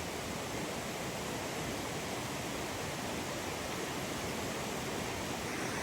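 Steady, even rush of a river flowing over stones.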